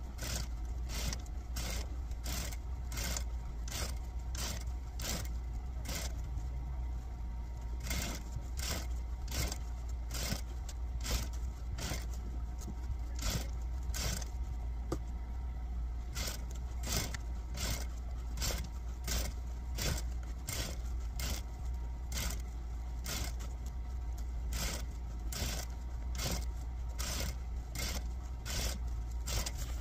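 Industrial sewing machine stitching tulle: a steady low motor hum under sharp, evenly spaced clicks of the needle and mechanism, about two a second.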